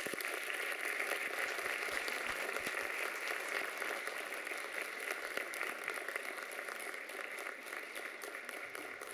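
Audience applauding steadily after a dance ends, easing slightly toward the end.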